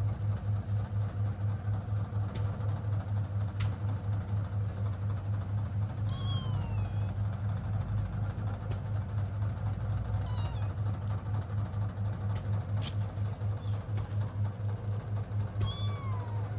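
A cat meowing three times, each meow short and falling in pitch, over a steady low pulsing hum with a few faint clicks.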